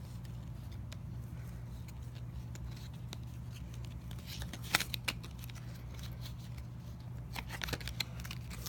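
Trading card pack and cards being handled: a few sharp crinkles and clicks of the wrapper and cards around the middle and near the end, over a steady low hum.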